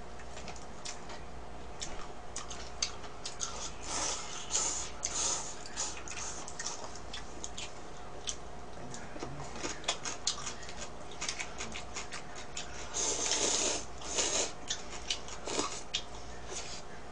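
Close-up eating sounds of instant noodles: slurping and chewing, with scattered small clicks from the mouth and chopsticks. Longer slurps come around four seconds in and again around thirteen seconds in.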